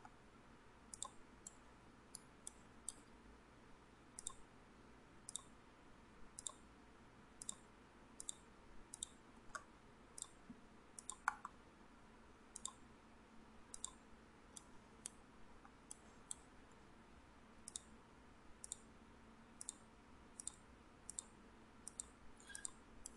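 Faint computer mouse clicks, roughly one a second and some in quick pairs, over quiet room tone.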